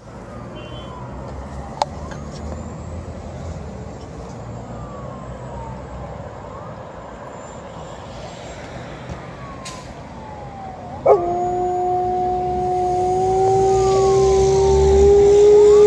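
A distant ambulance siren wails faintly in repeated falling sweeps over low traffic rumble. About eleven seconds in, an Alaskan Malamute breaks into a long howl: one held note, the loudest sound, rising slightly in pitch, set off by the siren.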